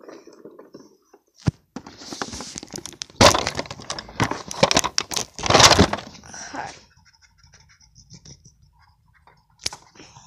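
Close handling noise of plastic toys and the recording phone: sharp clicks and knocks with rustling and rubbing, loudest in a burst of scraping and knocking in the middle, then quieter with one more sharp click near the end.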